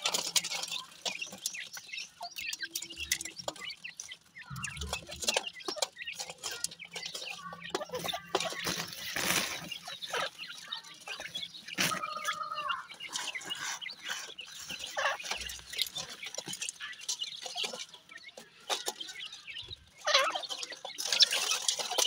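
Grey francolin chicks and an adult moving and pecking about a basin of grit: many small taps and scrapes, with a few short bird calls.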